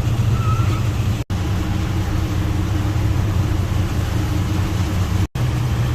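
A boat's engine running with a steady low drone, cut by two brief dropouts.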